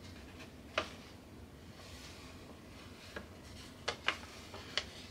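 Faint handling noise: about five short, sharp clicks and crinkles as a diamond painting kit is moved about, over a low steady room hum.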